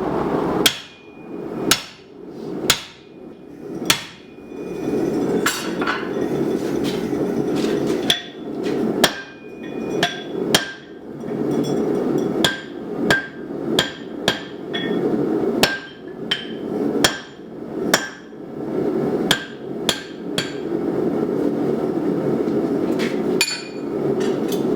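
Hand hammer striking hot steel on an anvil while forging an axe head, with short metallic rings after the blows. The blows come about once a second at first, then in quicker uneven runs, and stop about 20 seconds in except for one more near the end. A steady rushing noise runs underneath.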